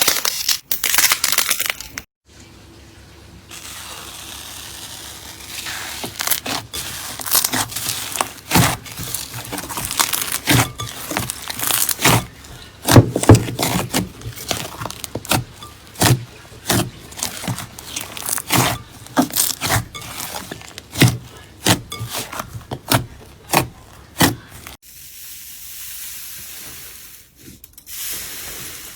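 Slime being squeezed and pressed by hand, giving irregular sharp crackles and pops, several a second. Quieter stretches of soft, even rustling come near the start and near the end.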